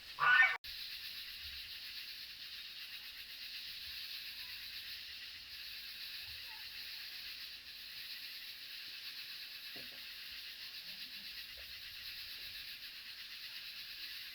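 A brief loud call-like sound that cuts off abruptly, then a steady high-pitched hiss of outdoor ambience.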